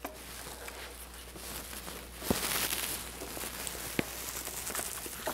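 A soft cushion cap being pressed and worked by hand onto the top of an aluminium dolly tube: rubbing and rustling of handling, with two sharp clicks, one a little over two seconds in and one at about four seconds.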